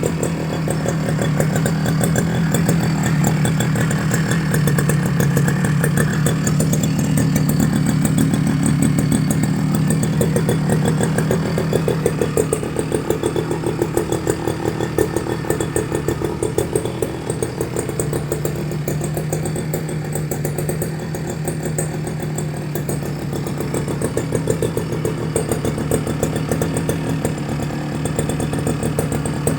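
Tasco two-stroke brush cutter engine running on test, a steady buzzing note whose speed sags for several seconds midway and then picks back up.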